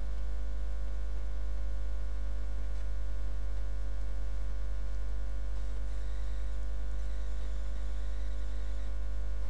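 Steady low electrical mains hum, with a stack of fainter, higher steady hum tones above it.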